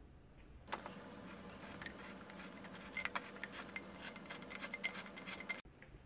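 Thin aluminium bottle being turned against a fixed cardboard-saw replacement blade on a wooden jig, the blade scraping and scoring the metal to cut it to height. A steady scraping with many small clicks, starting about a second in and cutting off suddenly near the end.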